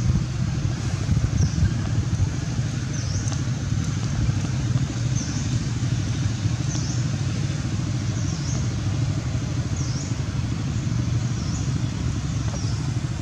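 A steady low rumble, with a short high chirp repeating about every second and a half.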